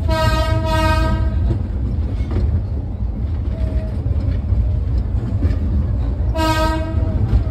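Ambarawa tourist train running with a steady low rumble, its locomotive sounding two horn blasts: a long one of about a second and a half at the start and a shorter one about six seconds in.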